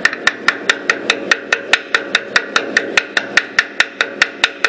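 Steady, evenly spaced mechanical clicking, about five sharp ticks a second, over a low background hum.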